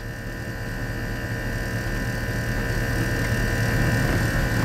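Off-road vehicle's engine idling, heard from inside the cab as a steady low hum with a steady whine above it, growing slowly louder over the first few seconds.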